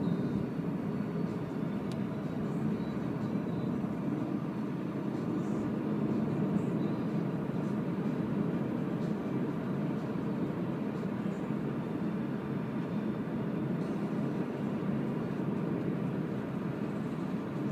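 Steady road and tyre noise inside the cabin of a Renault ZOE electric car driving at speed, with no engine sound.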